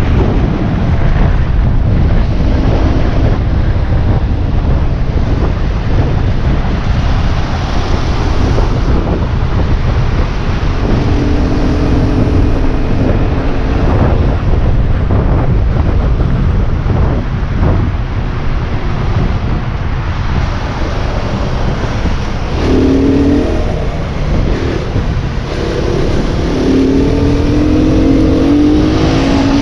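Aprilia RX enduro motorbike riding along with heavy wind noise on the microphone. The engine note comes through steady for a couple of seconds midway, then climbs in several revving sweeps over the last few seconds.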